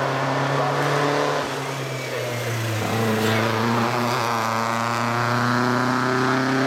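Engine of a vintage open-wheeled single-seater racing car under hard acceleration out of a bend and up the hill. The note holds fairly even at first, breaks briefly about three seconds in, then climbs steadily in pitch.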